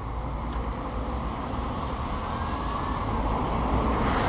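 Road traffic passing, a steady hiss and rumble of vehicles with one growing louder toward the end as it approaches.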